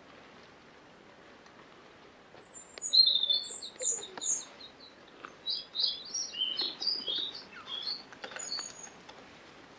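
Birds chirping: a quick run of short, high-pitched notes starting about two and a half seconds in and dying away near the end.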